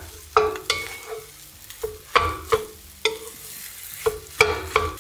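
Wooden spatula stirring fried rice in a nonstick pan, with a series of sharp knocks and scrapes against the pan, each ringing briefly. A faint sizzle runs underneath, the heat turned down to low.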